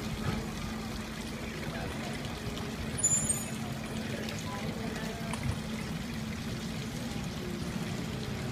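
Water from a public fountain pouring and splashing steadily, under a steady low hum. A brief high-pitched ring sounds about three seconds in.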